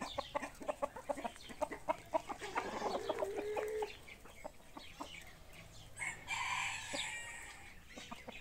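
Chickens clucking while they feed, with many short taps throughout. There is a drawn-out call from about two and a half to four seconds in, and a louder, fuller call about six seconds in.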